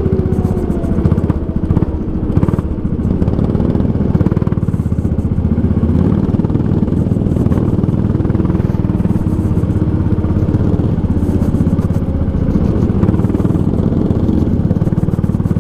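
Go-kart engine running at speed, heard from on board the kart, with a steady, even loudness throughout.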